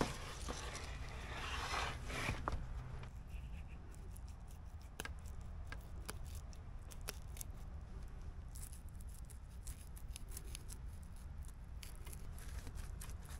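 Fillet knife cutting into a steelhead along its back: a soft scraping for the first couple of seconds, then faint scattered clicks as the blade keeps working through the fish.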